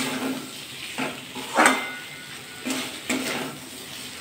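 Metal spatula scraping and stirring chickpeas through a thick spice masala in a metal kadai, in about five strokes with the loudest about one and a half seconds in. A soft sizzle of frying runs underneath as the masala is sautéed.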